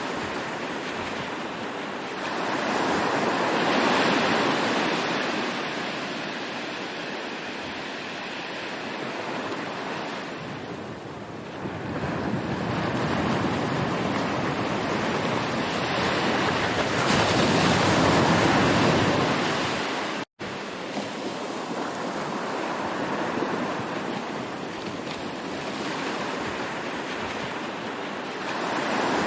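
Ocean surf: waves breaking and washing in, swelling and ebbing every several seconds. The sound cuts out for an instant about two-thirds of the way through.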